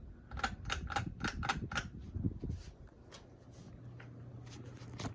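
A quick run of sharp mechanical clicks as the Hunter Coastal Breeze Plus ceiling fan is switched to high speed, followed from about three seconds in by the fan motor's steady low hum.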